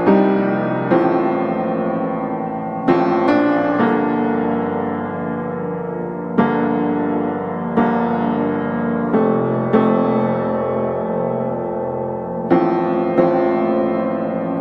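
Background piano music: slow chords struck every second or two, each ringing out and fading.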